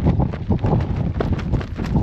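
Storm wind buffeting the microphone in a heavy low rumble, with rain drops striking close by in many irregular sharp taps.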